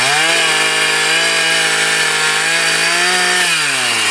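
Chainsaw speeding up, held at a steady high speed for about three seconds, then slowing back down near the end.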